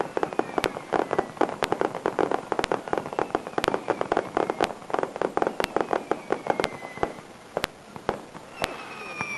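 Fireworks going off in a rapid, dense crackle of sharp pops, with a few falling whistles from the shells. The crackle thins out near the end. A sharp click repeats evenly about once a second throughout.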